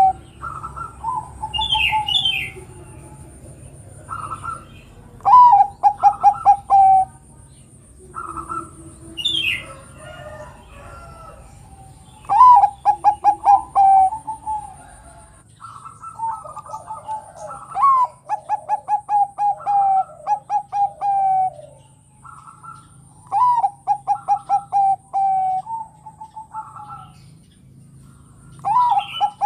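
A zebra dove (perkutut, Bangkok type) cooing in repeated phrases. Each phrase is a quick run of staccato notes that opens on a higher note and falls, with gaps of a second or more between phrases. Fainter high chirps from other birds and a steady thin high tone sound in the background.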